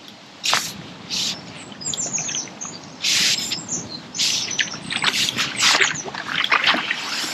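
Small birds chirping in quick, high calls, among several short, loud rushing bursts of noise.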